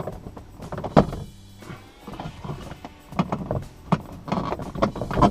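Plastic dashboard trim being pried off with a tape-wrapped prying tool: a run of clicks, creaks and knocks from the trim and its clips, with a sharp click about a second in and a busier cluster of clicks in the second half.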